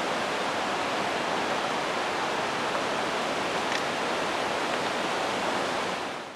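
Steady rush of falling water from a waterfall and creek, fading out quickly near the end.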